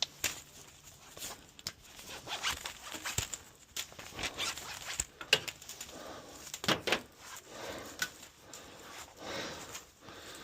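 A stainless garden hose being pulled apart by hand: irregular scraping, rustling and sharp clicks as the hose comes apart in pieces.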